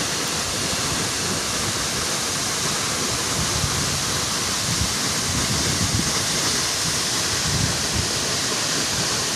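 Steady rush of a roughly 30-metre waterfall plunging into its pool.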